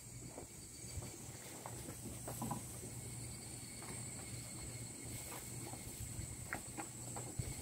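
Quiet outdoor ambience: a steady high-pitched insect drone over a faint low hum, with a few soft scattered clicks.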